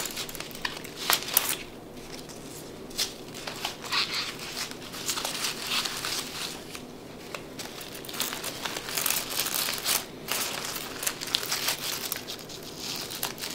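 Artificial plastic eucalyptus leaves and fake flowers rustling and crinkling as they are handled and their stems pushed into a floral-foam base, in irregular bursts of small crackles.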